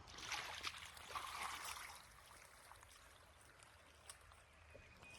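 Faint trickling and sloshing of floodwater, louder in the first two seconds and then dying down to a low hush, with one small click about four seconds in.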